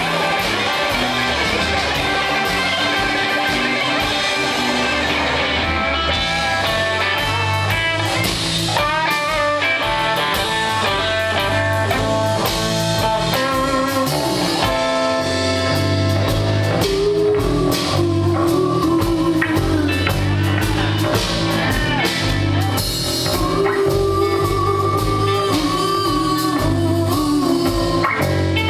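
Live electric blues band playing: electric guitar lead lines with fast runs and bent notes over electric bass and drum kit, with a voice singing near the end.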